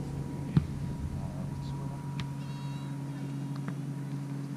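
A volleyball struck once by hand with a sharp slap about half a second in, over a steady low hum and faint distant voices.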